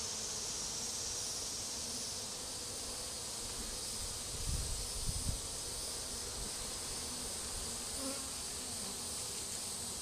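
Honey bees buzzing steadily around an open hive being inspected, with a few low bumps about halfway through.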